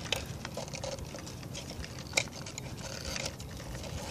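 Light clicks and rattles of the plastic fuel pump module being handled and lifted apart by hand, with one sharper click about two seconds in.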